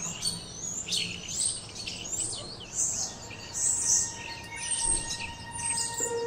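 Many small birds chirping and singing, a dense run of short, high, overlapping calls. Faint held tones of music come in under the birds in the second half.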